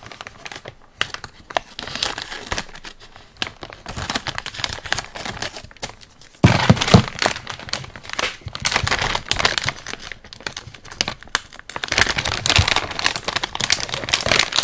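Plastic parts bag from an RC truck kit being opened and its contents handled, with irregular crinkling and rustling that grows louder about halfway through and again near the end.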